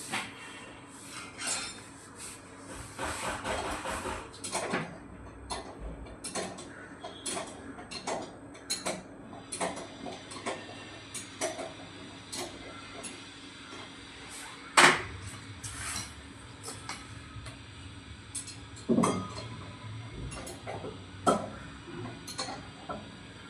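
Irregular clicks, knocks and clinks of hard objects being handled, with a louder sharp knock about fifteen seconds in.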